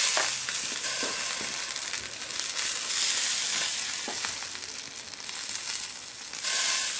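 Bacon-wrapped moink balls sizzling steadily on the hot rack of an open COBB grill, a hiss of rendering bacon fat with a few small clicks.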